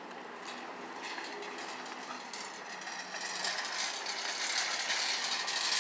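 Store cart rolling over a hard floor, its wheels and frame rattling and clattering, growing steadily louder as it approaches.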